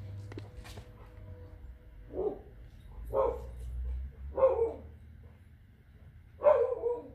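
A dog barking, four short barks about a second or two apart, the last one the loudest and longest.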